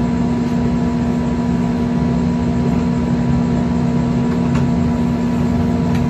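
Steady mechanical hum with a low drone and even background noise, unchanging throughout.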